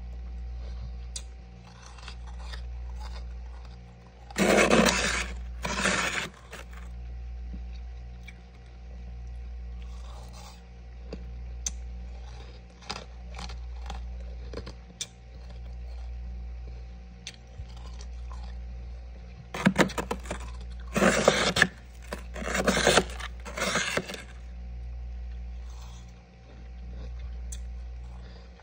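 A spoon scraping and digging into thick packed freezer frost, two scrapes about 4 seconds in and four more starting about 20 seconds in, over a steady low hum.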